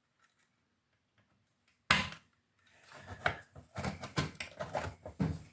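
Workbench handling noises: a sharp knock about two seconds in, then a run of clicks, taps and rattles as the opened cassette multitrack and its leads are handled.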